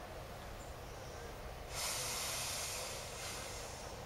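Hot-air balloon propane burner firing into the envelope in one blast of about two seconds, a loud hiss that starts about two seconds in and stops shortly before the end.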